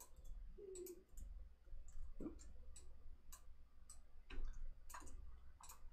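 Faint, sparse clicking from a computer keyboard and mouse, about ten short clicks at uneven intervals, over a low electrical hum.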